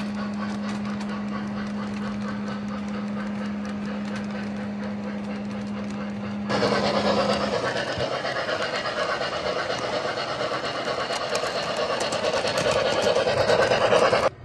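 Model Milwaukee Road F-7 Hudson steam locomotive and its passenger cars running along the track, with a steady hum under the rolling cars at first. About six and a half seconds in it changes to a closer, louder, quick rhythmic clatter of the locomotive running past, growing louder toward the end and cutting off suddenly.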